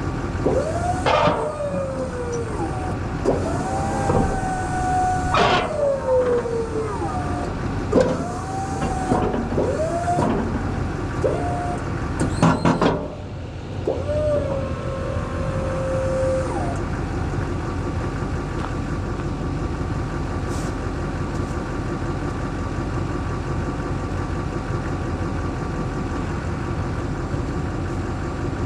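Blizzard 860SW snow plow's electric-hydraulic pump running in a series of short whines that rise and sag in pitch as it works the plow, with a few sharp clunks, over a Chevrolet K3500 Duramax diesel idling steadily. The plow answers its controls now that its electrical contacts have been cleaned. The whines stop about seventeen seconds in, leaving only the idle.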